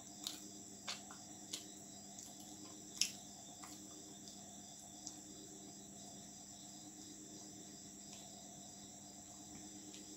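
Quiet eating sounds: a handful of short, sharp clicks from chewing and from fingers tearing roti on the plate, the loudest about three seconds in. Under them runs a steady high-pitched insect chirring and a faint low hum.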